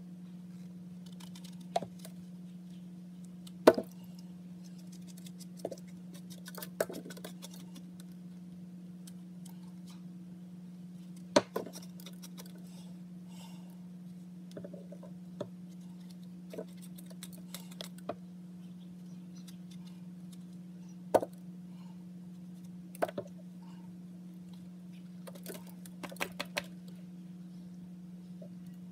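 A kitchen knife scraping and tapping at soft cooked eggplant, giving scattered sharp clicks every few seconds, with light plastic-bag crinkling. A steady low hum runs underneath.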